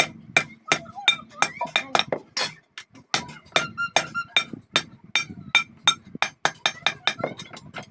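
Hand hammer striking a small strip of sheet steel on a steel block: a fast, even run of sharp ringing metal blows, about three or four a second.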